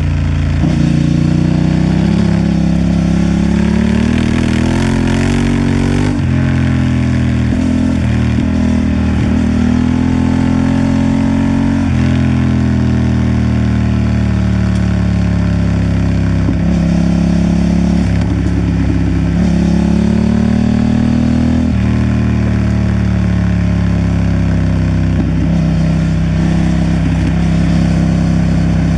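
Honda Transalp XL750's 755 cc parallel-twin engine running under way, its pitch repeatedly sinking slowly and then climbing again sharply as the throttle opens.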